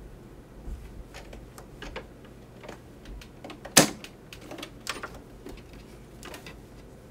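Fabric and zipper tape being handled and positioned at a sewing machine, giving soft rustles and small clicks, with one sharp click just under four seconds in. The machine's motor is not running.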